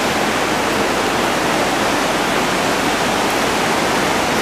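Steady rushing of the Humla Karnali River's white-water rapids.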